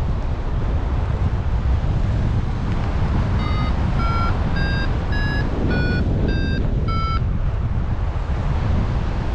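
Wind buffeting the microphone, and about three seconds in a paragliding variometer beeps seven times over about four seconds. Its pitch shifts up and down from beep to beep, the vario's signal that the glider is climbing in lift.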